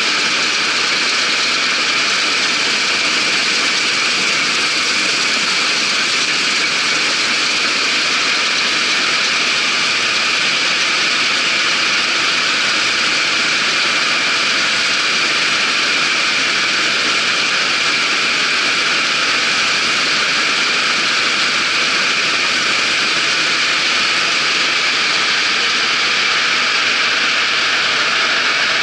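Claas Dominator 88 combine harvester running steadily under harvest work, its engine and threshing machinery making an even, unbroken noise with a steady high whine.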